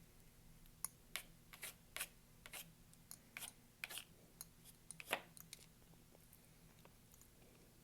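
Paintbrush working acrylic paint, a quick series of short, faint scratchy dabs and strokes.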